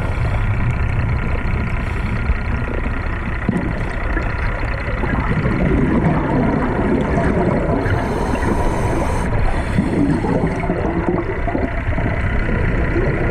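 Underwater sound of a scuba diver breathing through a regulator: a hissing inhale lasting over a second about eight seconds in, and bubbling exhales, over a steady underwater drone with faint steady tones.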